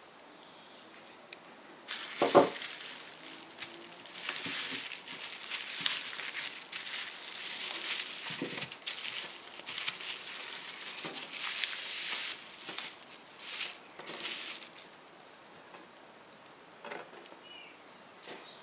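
Clear plastic packaging crinkling and rustling in bursts as brake pads are handled and laid out on it, with a knock about two seconds in as a pad is put down.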